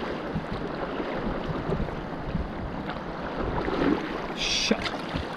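Fast river water rushing and splashing through rapids over boulders around an inflatable kayak, with wind on the microphone. A brief high-pitched burst cuts through about four and a half seconds in.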